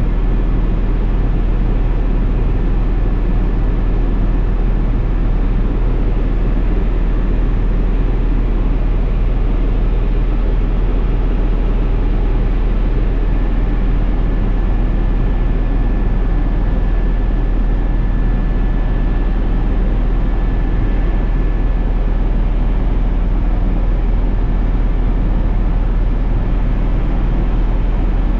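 Helicopter cabin noise in steady flight: a constant deep drone under a dense, even rush, with a faint thin high tone that grows stronger through the middle.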